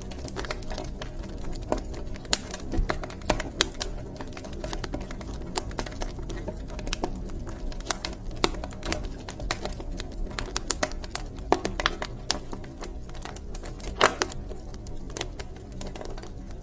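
Wood fire crackling in a fireplace: irregular sharp pops and snaps of varying loudness over a steady low rumble of burning.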